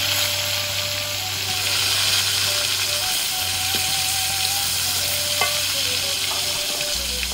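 Battered food deep-frying in hot oil in a wok, a dense, steady sizzle, while a metal slotted spatula stirs it and taps the wok a couple of times.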